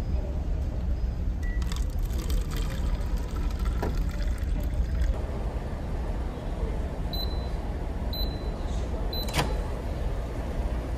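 Commercial microwave oven giving three short high beeps about a second apart, followed by a sharp click from its door, over the steady low drone of the ferry's engines.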